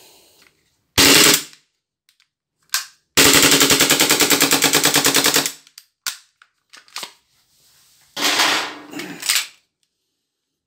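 KJW KP-18 airsoft Glock 18 gas-blowback pistol firing on full auto. There is a short burst about a second in, then a longer burst of rapid, evenly spaced shots lasting over two seconds, with the slide cycling on each shot. Scattered clicks and handling noises follow.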